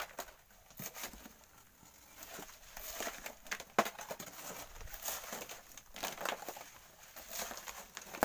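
Gritty scraping and rattling of volcanic sand and gravel being dug with a hand tool and shaken through a wire-mesh sieve into a metal wheelbarrow, in irregular strokes. A sharp knock a little under four seconds in.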